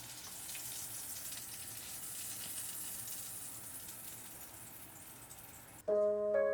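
Food sizzling in hot oil in a frying pan, a steady hiss that slowly dies down. Near the end, piano music starts suddenly.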